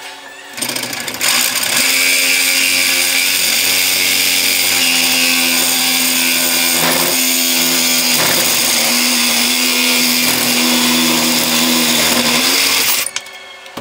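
Makita reciprocating saw cutting through square steel tubing clamped in a vise: a steady motor hum with the blade's cutting noise in the metal. It starts about half a second in, comes up to full speed within the next second, and stops about a second before the end.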